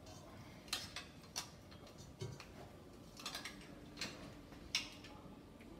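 Hand potato masher working cooked potatoes in a pot: soft, irregular knocks and clicks, about seven of them.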